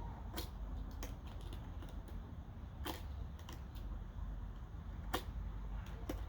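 Utility-knife blade cutting into carved wood: irregular sharp clicks and snaps as slivers are pared away, the loudest three spaced a couple of seconds apart, over a steady low rumble.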